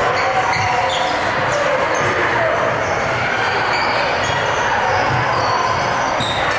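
A basketball bouncing on an indoor court during a game, amid the steady din of a gym.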